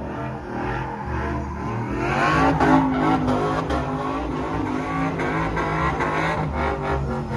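Car engine revving hard with tyre squeal as a car spins donuts; the engine note climbs about two seconds in.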